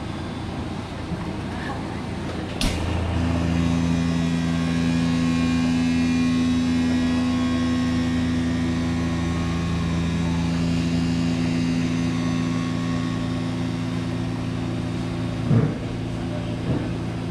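Stainless-steel chamber vacuum packaging machine: the lid shuts with a sharp clack, then the vacuum pump runs with a steady hum as it draws the air out of the bagged mullet roe. Near the end a short burst breaks in, and after it the hum carries on lower.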